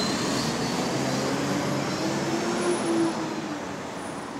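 Hybrid double-decker bus pulling away, its drive giving a rising whine and hum as it gathers speed, then fading as it moves off.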